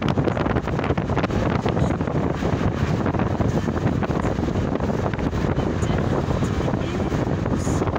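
Steady rush of wind buffeting the microphone from a moving vehicle, with the vehicle's road noise underneath.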